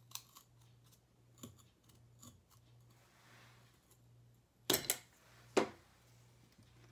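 Small scissors snipping through a painted wooden craft stick with a few sharp crunching clicks. About five seconds in come two louder sharp knocks, a second apart.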